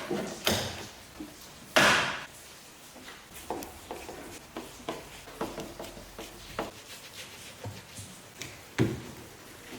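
Irregular knocks and clunks of objects being handled and set down, loudest about two seconds in and again near the end.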